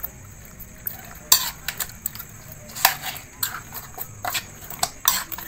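A metal spoon clinking and scraping against a metal pan at irregular moments while spice paste is spread over whole mujair fish.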